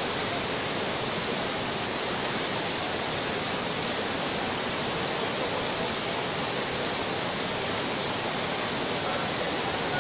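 Flood-swollen river torrent rushing over rocks: a loud, steady, unbroken rush of churning water.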